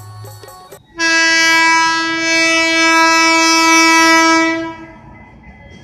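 WAP-5 electric locomotive's horn sounding one loud, steady blast of about four seconds, starting about a second in. After it stops, the train's running noise goes on more quietly.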